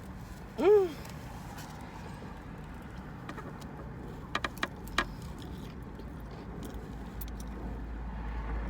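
Steady low rumble of a vehicle, growing a little louder near the end, with a short rising-and-falling pitched sound about half a second in and a few light clicks around the middle.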